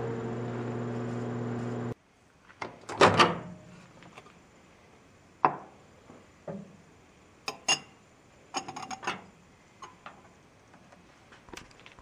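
GE countertop microwave oven running with a steady hum, which cuts off abruptly about two seconds in. Then comes a loud clunk as the door opens, followed by scattered light knocks and glassy taps as a thermometer goes into the glass beaker.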